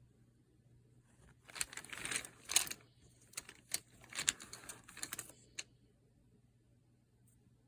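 Coloured pencils rattling and clicking against one another as they are handled, a clatter of quick clicks lasting about four seconds.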